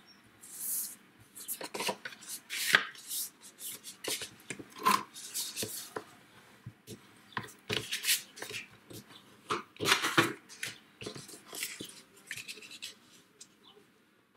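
Hands handling and sliding card stock and paper on a craft mat: short scrapes, taps and rustles at an irregular pace, dying away near the end.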